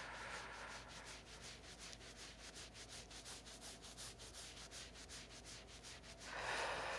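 Fingertips rubbing firmly over a cotton top at the sides of the breastbone, a faint rhythmic scratching of about four or five strokes a second. A louder rush of noise comes in about six seconds in.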